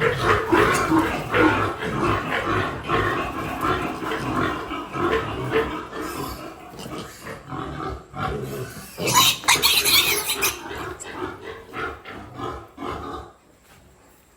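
Pigs grunting and squealing almost without pause, with a high, loud squeal about nine seconds in. The noise dies down shortly before the end.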